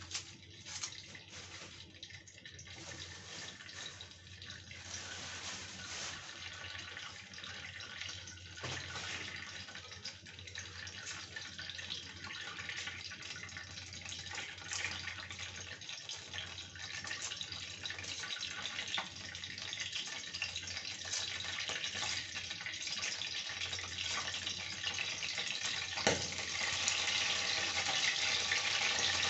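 Cooking oil heating in a kadai, a faint crackling sizzle that grows steadily louder as the oil comes up to frying heat, with one sharper pop a little before the end.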